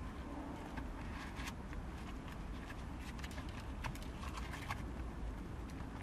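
Gloved hands handling a leather gear-lever boot and gear knob: irregular small clicks, taps and rustles over a steady low rumble.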